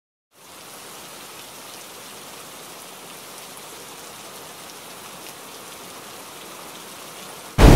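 Steady rain-like hissing sound effect with faint pattering ticks. Near the end a sudden loud boom cuts in and rings away slowly.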